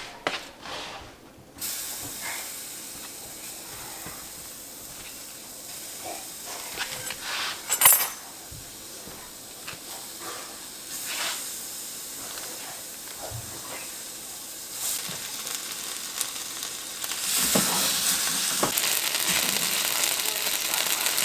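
Food sizzling as it fries in a pan: a steady hiss that starts about a second and a half in and turns clearly louder a few seconds before the end, with scattered clicks of a utensil against the pan and one sharp clink about eight seconds in.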